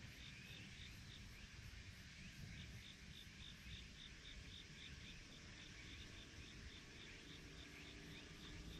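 Faint insects chirping, with a high, even pulse repeating about three times a second, over a low background rumble.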